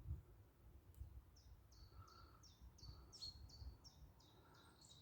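A songbird singing faintly: a run of about ten evenly spaced, high, down-sliding notes, starting about a second and a half in, over a faint low rumble.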